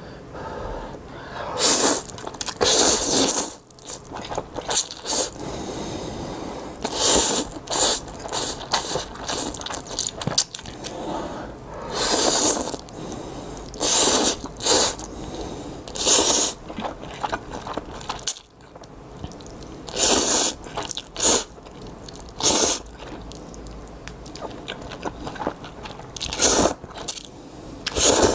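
Instant ramen noodles being slurped up in a dozen or so loud, hissing pulls, each under a second, with chewing in between.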